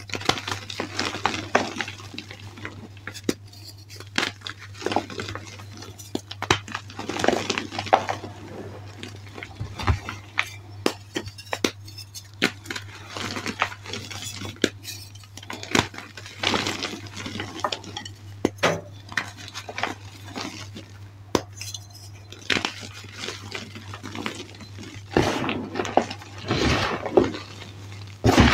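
Blocks of gym chalk crushed and crumbled by hand into a tray of chalk powder: irregular crisp crunches and crackles with softer powdery rubbing between, over a steady low hum.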